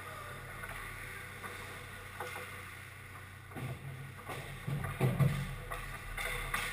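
Ice hockey play on an indoor rink: skates scraping and carving on the ice and sticks knocking on the ice and puck, with a cluster of louder knocks and thuds about halfway through.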